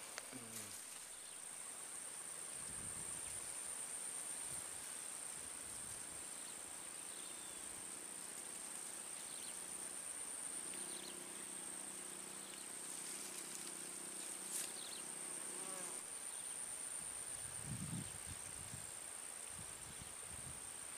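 Insects in the swamp grass buzzing with one steady, high-pitched, unbroken trill.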